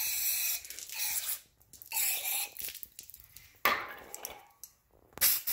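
Aerosol cleaner sprayed through its straw into freshly tapped head-bolt holes in an aluminum engine block, flushing out the tapping debris. It comes in about five short hissing bursts with brief pauses between them.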